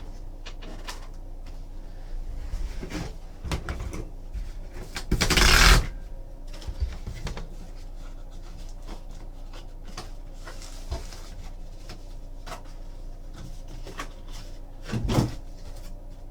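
Handling noise from sleeved 8x10 photos: scattered soft clicks and taps, with a louder scraping rustle lasting under a second about five seconds in and a shorter one near the end.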